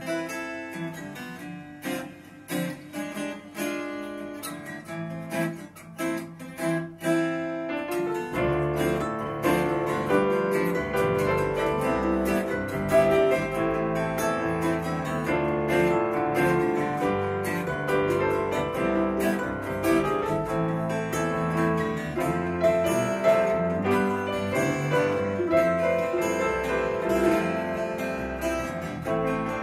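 Live band playing the instrumental intro of a song: acoustic guitar alone at first, with electric bass and keyboard coming in about eight seconds in for a fuller sound. No singing.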